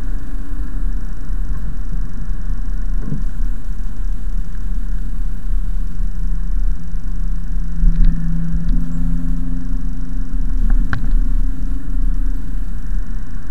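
Mercedes-Benz C-Class coupe on the move, heard from inside the cabin: a steady engine drone over heavy road rumble, the engine note strengthening a little about eight seconds in, with a couple of faint clicks.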